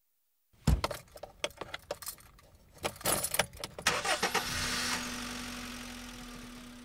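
Keys jangling and clicking as a car key goes into the ignition and is turned, then the starter cranks and the car's engine starts and runs steadily, fading out.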